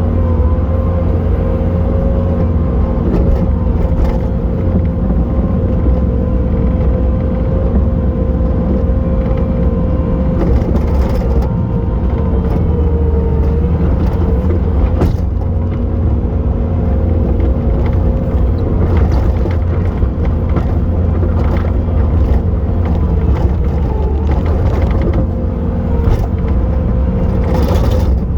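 Bobcat T870 track loader working at high revs, a steady deep diesel rumble with a hydraulic-style whine on top. The pitch sags briefly about halfway through as the machine takes a load, and scattered knocks and clatter come from the bucket working the snow.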